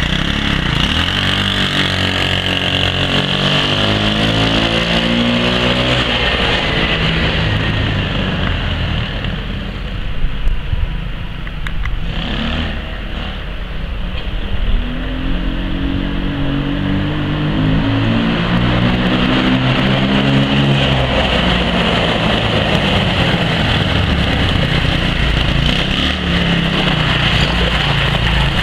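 Small engine of a Yerf-Dog off-road go-kart running and revving as the kart drives around, its pitch climbing and falling in long runs, with a steady high whine over it.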